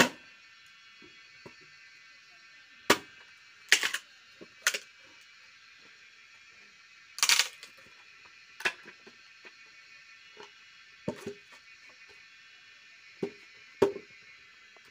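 Axe blows on a wooden log as it is chopped and split, about nine sharp strikes at uneven intervals, some in quick pairs.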